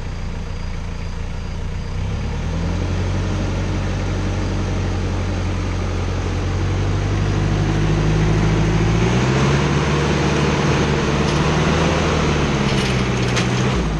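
Off-road 4x4's engine pulling under load as the truck climbs out of a muddy crossing, its revs rising in two steps and dropping back just before the end.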